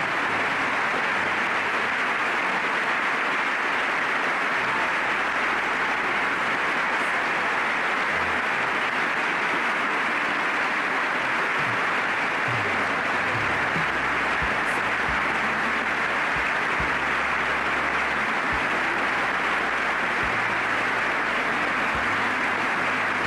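A large audience applauding steadily in a long, unbroken ovation.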